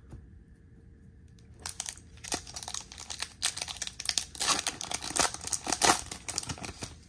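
Foil wrapper of a Topps baseball card pack crinkling and tearing as it is pulled open by hand. A dense crackle starts about a second and a half in and is loudest near the end.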